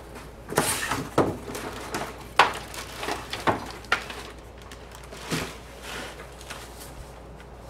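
Cardboard box and plastic packaging being handled: a string of irregular rustles, scrapes and sharp knocks as parts are pulled out of the box.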